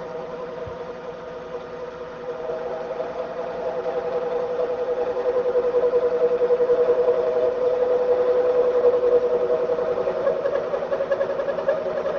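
Metal lathe running steadily with a machine hum, growing louder over the first several seconds and then holding.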